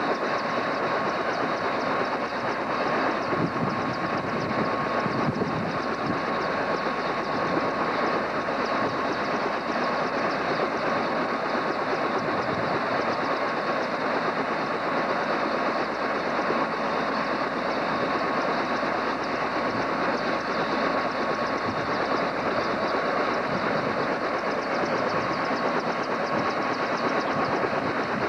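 Bell 206 JetRanger helicopter running on the ground with its rotor turning: a steady, dense engine and rotor noise with a steady high turbine whine over it.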